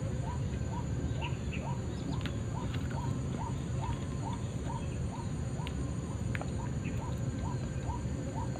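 White-breasted waterhen's repeated call, one short rising 'kru-ak' note about twice a second in a steady, even rhythm, over a low rumble with a few faint clicks.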